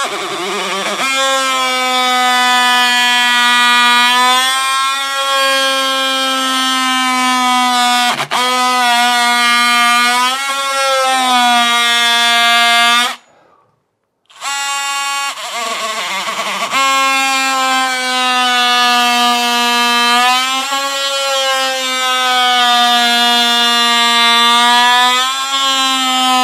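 DeWalt cordless oscillating multi-tool plunge-cutting into a hard maple hardwood floor. It gives a loud, steady, high buzz that sags slightly in pitch as the blade bites, with a sharp click about a third of the way in and a pause of about a second halfway through before the cut resumes.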